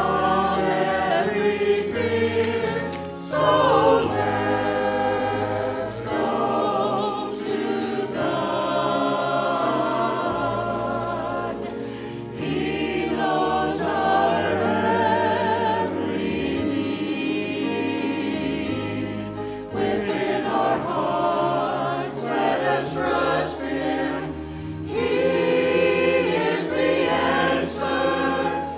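Small mixed church choir of men and women singing together, phrase after phrase, with brief pauses between phrases.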